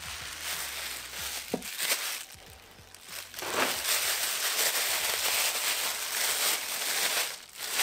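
A towel rustling softly as it is pulled away, then a thin plastic bag crinkling and rustling loudly from about three seconds in as hands unwrap a laptop battery from it.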